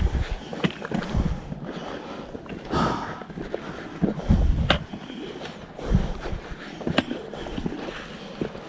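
Irregular thuds, scuffs and clicks of a hiker climbing a mountain trail, with wind buffeting the microphone.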